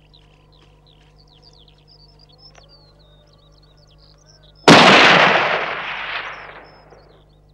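A single loud gunshot about two-thirds of the way in, its echo dying away over about two seconds. Small birds chirp faintly before it.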